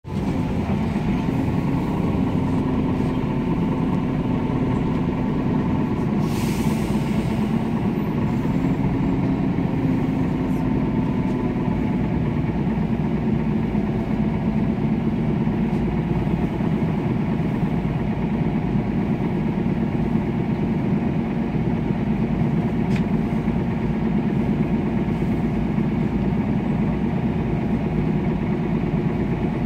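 MAN Lion's City CNG bus running, heard from inside the cabin: a steady drone from its rear-mounted MAN E2876 natural-gas turbo engine, with a wavering whine. A brief hiss comes about six seconds in.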